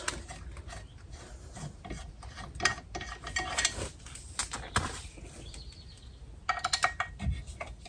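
Metal suspension parts being handled and packed back into their box: scattered clinks, knocks and rubbing, busiest near the end.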